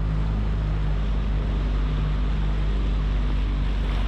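Dinghy outboard motor running steadily under way, a constant low hum, with water rushing past the hull.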